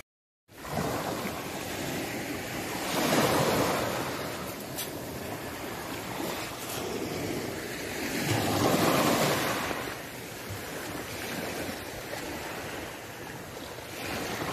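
Small sea waves washing onto a pebble beach, swelling louder twice as waves run in, with wind on the microphone. The sound drops out for half a second at the start.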